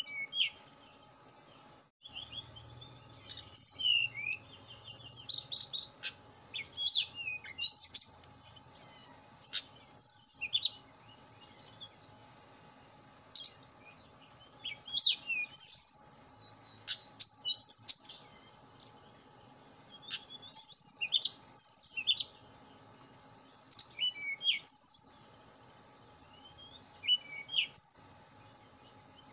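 Hill blue flycatcher (tledekan gunung) singing: short, high, varied phrases of quick whistles and trills, coming in bursts every second or two.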